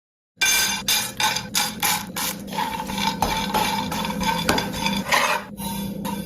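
Kitchen utensils knocking and scraping against a pan or bowl in a quick, uneven run of sharp strikes over a steady low hum, starting after a brief silence.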